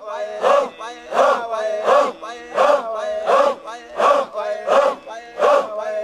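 A crowd of men chanting together in rhythm, a loud shouted accent about every two-thirds of a second over a held note.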